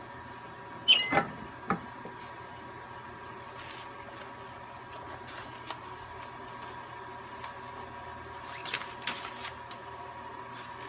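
Heat press opened after a timed press: one sharp metallic clack about a second in, then a smaller knock, over a faint steady high hum. A few light clicks follow near the end.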